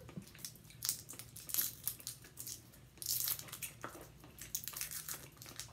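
Wrappers crinkling as individually wrapped Now and Later taffy squares are picked open by hand, in irregular crackles with a louder patch about three seconds in.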